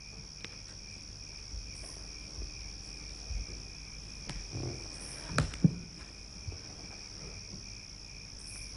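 Crickets chirping steadily, a constant high trill, with two soft knocks a little past halfway.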